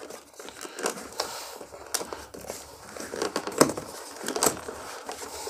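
Hands handling a small cardboard retail box and working its end flap open: irregular rustles, scrapes and light clicks of card, with a few sharper clicks.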